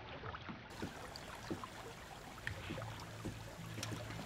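Faint scattered clicks and taps from a fishing reel being worked against a hooked fish in an aluminium boat, over soft river-water noise. A low hum comes in about halfway.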